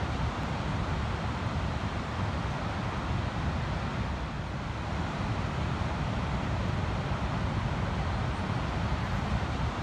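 Ocean surf washing onto a sandy beach, a steady rush of noise, with wind rumbling on the microphone.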